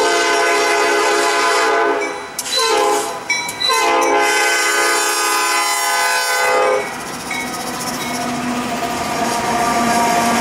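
Norfolk Southern GE AC44C6M locomotive's Nathan P5 air horn sounding a long blast, a short blast and a longer blast for the grade crossing. Then the locomotives pass close by with diesel engine rumble and wheels clicking over the rail joints.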